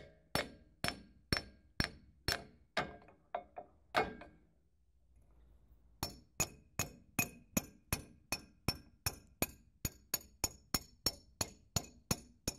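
Hammer blows on the steel pivot pin of a loader's bucket cylinder, driving the pin out of its mount: sharp metal-on-metal strikes with a short ring, about two a second. The strikes stop for about two seconds, then resume faster, about three a second.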